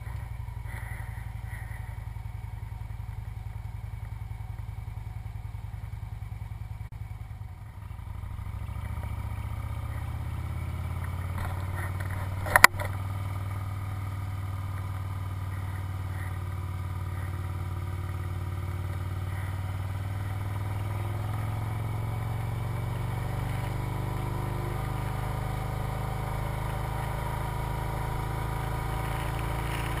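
Victory motorcycle's V-twin engine running under way, a steady low drone. The sound dips briefly about seven seconds in, then comes back stronger and builds slowly. A single sharp click about twelve seconds in is the loudest sound.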